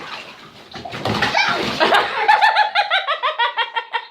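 Splashing in bathwater, then, from just over a second in, a person laughing hard in a rapid, high-pitched run of ha-ha bursts.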